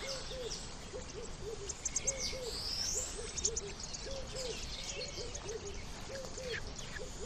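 Forest bird ambience: a low hooting call repeated over and over in quick pairs and short runs, with scattered higher chirps and a rising whistle about three seconds in.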